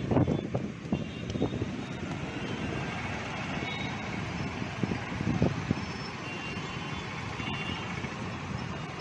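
Steady outdoor wash of heavy monsoon rain and distant traffic over a flooded city street, with wind buffeting the microphone in low rumbles near the start and again around five seconds in, and a few faint short beeps.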